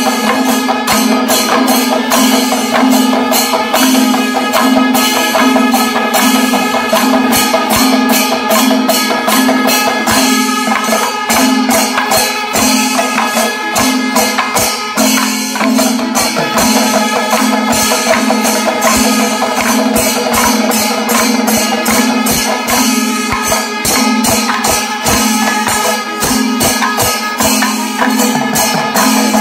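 Kerala temple percussion ensemble playing: drums and ilathalam hand cymbals beaten in fast, dense strokes, with the curved kombu horns sounding a steady held note above them.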